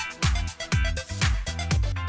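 Electronic dance background music with a steady kick drum beating about twice a second.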